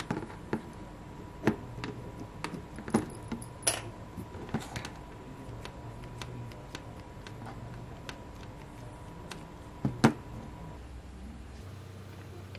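Scattered small clicks and taps of hard plastic and metal as a 1/24-scale RC car chassis with 3D-printed parts, coil-spring shocks and screws is handled on a wooden table, with a louder knock about ten seconds in. A faint steady tone runs underneath and stops about eleven seconds in.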